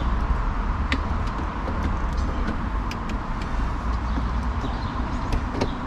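A few light clicks of the outside door handle and its plastic trim being worked free of the car door, over a steady low rumble.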